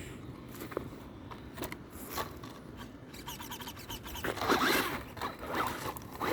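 RC car driven in short throttle bursts on a dirt slope, its tires scrabbling and scraping over the ground. The loudest bursts come about four and a half seconds in and again at the very end.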